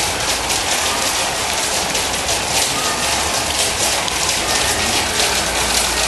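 Steady rain on a metal building's roof: a dense, even crackling hiss.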